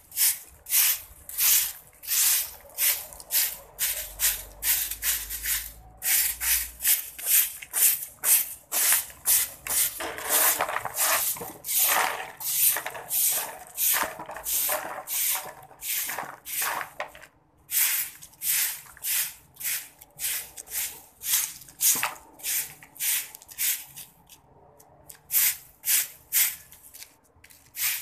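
Long-fibred hand broom sweeping across concrete in repeated swishing strokes, about two a second, with a couple of brief pauses.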